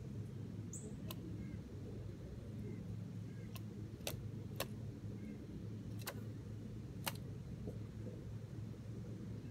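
Steady low background rumble with about six sharp ticks spread through it, and one short high chirp about a second in.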